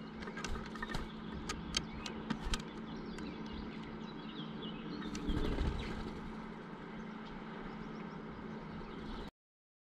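A common starling moving about on a wooden bird-feeder: a run of sharp clicks and taps over the first few seconds, then a short rush of wingbeats about five seconds in as it flies off. A steady low hum lies underneath.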